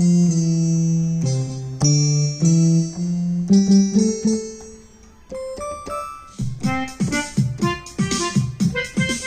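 Yamaha PSR-I400 portable keyboard playing held chords for several seconds. After a brief fade, a different sound starts with quick repeated notes over a steady beat, like a built-in accompaniment style.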